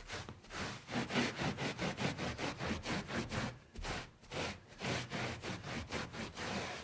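Wiping up a spill: a surface scrubbed in quick back-and-forth strokes, about four or five a second, with a brief pause about halfway through.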